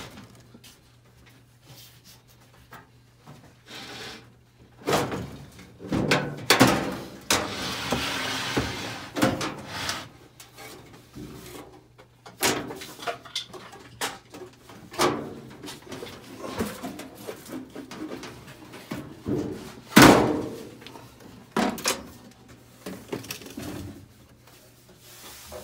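Knocks, clanks and scraping as a microwave's sheet-metal outer cover is worked loose by hand, with one sharp bang about 20 seconds in.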